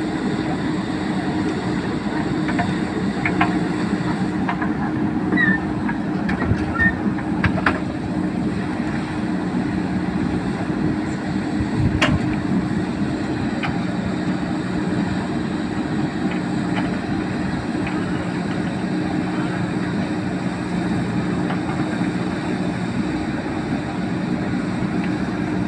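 JCB 3DX backhoe loader's diesel engine running steadily at a constant speed, with a few short clanks and knocks.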